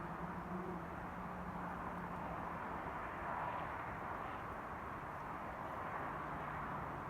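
A steady, distant mechanical drone with a faint low hum under it, the hum dropping in pitch about six seconds in: the unexplained noise the recording was made to capture.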